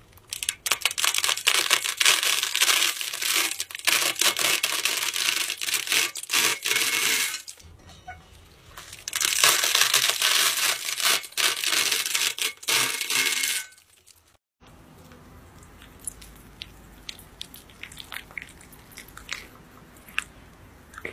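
A bundle of dry spaghetti crunching and snapping as a blade sweeps across a metal ring and slices off the end, a dense crackle in two long runs with a short pause between. After a cut, faint scraping and small clicks as wet clay is handled.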